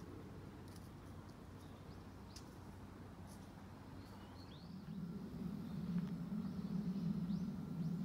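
Outdoor park ambience with small birds chirping faintly now and then. From about five seconds in, a low rumble of a passing vehicle grows louder and becomes the loudest sound.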